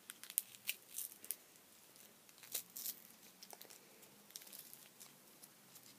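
Faint crinkling of a small clear plastic wrapper being handled and pulled open, in short scattered crackles.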